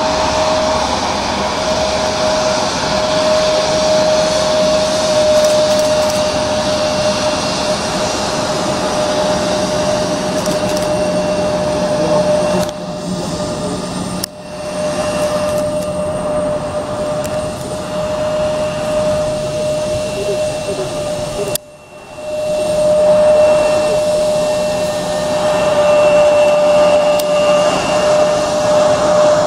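Alitalia CityLiner Embraer E170's General Electric CF34-8E turbofans whining steadily at taxi power, with a strong steady tone over a rushing hiss. The sound drops sharply for a moment twice, about 13 and 22 seconds in.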